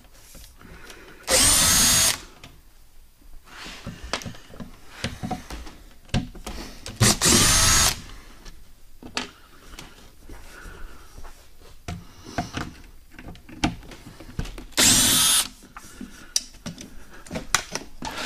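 Makita cordless drill-driver backing out screws, in three short runs of under a second each, about six seconds apart, its whine bending in pitch as the motor speeds up and slows. Light knocks and handling noise of the plastic rod-holder tubes fill the gaps.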